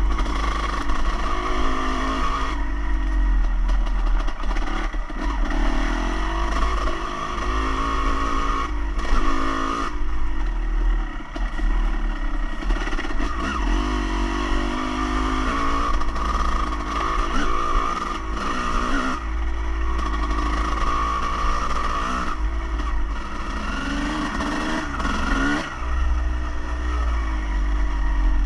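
An engine running under a heavy low rumble, its pitch rising and falling again and again as it revs up and eases off.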